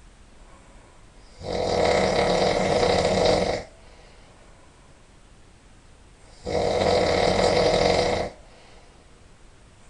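A person snoring loudly in sleep: two long, rough snores, each about two seconds, roughly five seconds apart with quiet gaps between.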